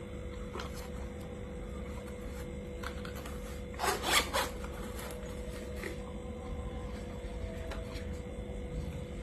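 The zipper of a small hard-shell camera case being pulled open, heard as two short raspy strokes about four seconds in, with a faint steady hum underneath.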